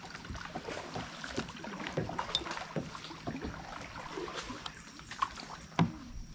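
Kayak paddling: paddle blades dipping and water splashing and dripping, with small irregular knocks and splashes and one louder splash near the end.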